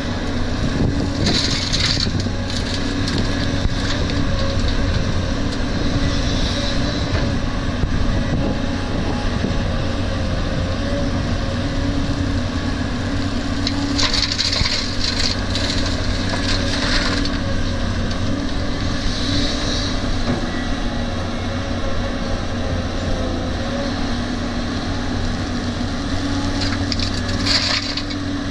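Caterpillar 320D hydraulic excavator's diesel engine running steadily under load as it digs and swings, with laterite soil and gravel pouring and rattling into a steel dump-truck bed several times, longest about halfway through and near the end.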